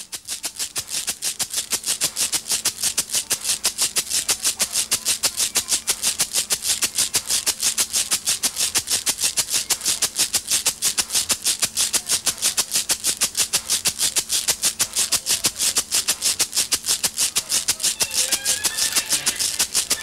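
A hand-shaken shaker, a small tin with something inside, rattling in a fast, even rhythm over a faint steady low tone.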